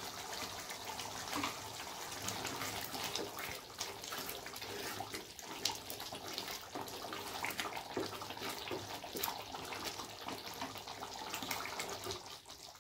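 Thick chickpea curry gravy boiling in an aluminium kadai: a steady bubbling with many small pops, stirred with a wooden spatula.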